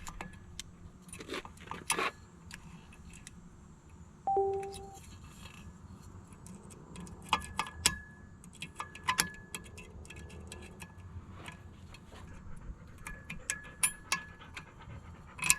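A steel cotter pin being worked out of a boat's propeller shaft with a hand tool: irregular light metallic clicks, clinks and scrapes, with a brief squeak about four seconds in.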